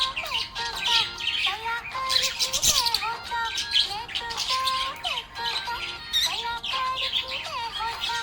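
Budgerigar chirping and warbling in quick, busy chatter, over a melodic tune.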